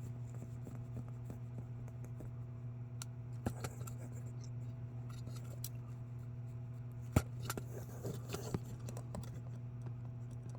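Small clicks, taps and scraping of parts being handled as a tiny pin is worked out of a model truck's fifth wheel, with one sharp click about seven seconds in. A steady low hum sits underneath.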